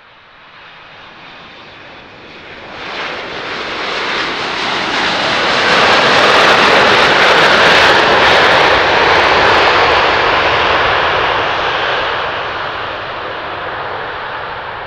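Boeing 767-300ER jet engines on a landing rollout. The engine noise rises sharply to a loud roar about three seconds after touchdown, as reverse thrust comes on, is loudest as the airliner passes, then fades as it slows down the runway.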